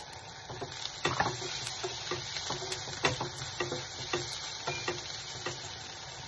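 Onion and ginger-garlic paste frying in butter in a steel pan: a steady sizzle, with irregular taps and scrapes of a wooden spatula stirring against the pan.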